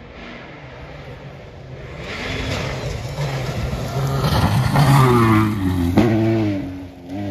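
Rally car approaching flat out on a gravel stage and passing close by, its engine revving up and down through gear changes over the noise of tyres on loose gravel, loudest about five seconds in. A single sharp crack about six seconds in.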